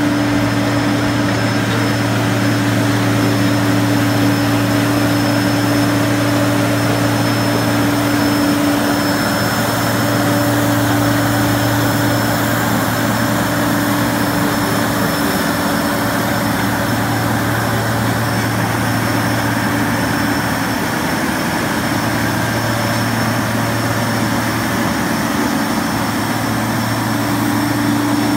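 Ingersoll Rand ECM-360 crawler rock drill's rebuilt Cummins diesel engine running steadily: a constant engine drone with a low hum.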